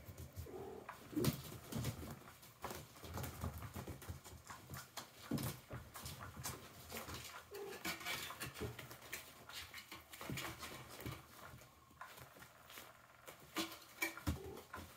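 Kittens scrambling and pouncing on a fabric cat toy and carpet: irregular scuffling, patting and rustling.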